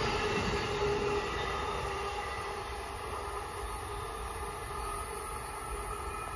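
Amtrak passenger train of Amfleet coaches running away down the tracks, its wheel-on-rail rumble fading as the last cars recede.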